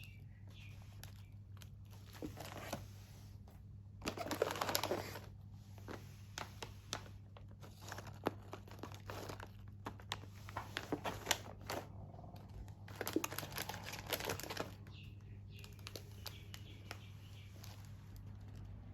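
Crinkly plastic snack packaging being handled and torn open, in irregular bursts of rustling with scattered clicks and taps, over a steady low hum.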